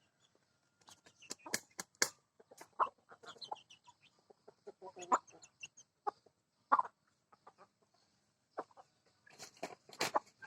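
Chickens clucking in short, scattered calls, mixed with sharp clicks, the loudest near the start and again near the end.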